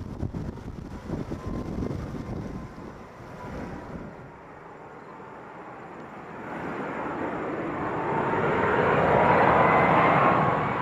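Wind gusts buffet the microphone for the first few seconds. Then a jet airliner's engines grow louder in the last few seconds, with a faint whine that rises slightly in pitch.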